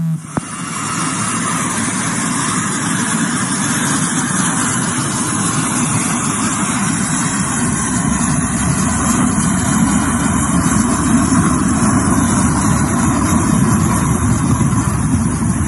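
A private jet's engines running at takeoff power: a steady rushing noise with a faint high whine. It swells over the first couple of seconds and then holds.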